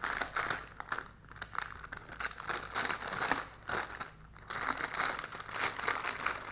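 Product packaging crinkling and rustling as it is opened and handled, in irregular crackles with a short lull about four seconds in.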